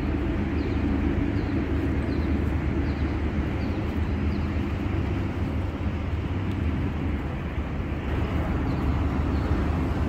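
Steady low outdoor rumble, holding level throughout.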